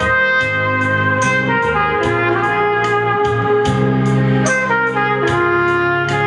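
Trumpet playing a slow melody in long held notes over a backing track with a steady drum beat and accompanying guitar or keyboard chords.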